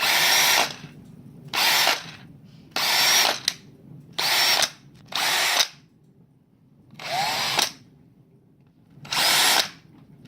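DeWalt DCD778 18 V brushless cordless hammer drill-driver whirring in seven short trigger pulls of about half a second each, its motor winding up and back down with each pull.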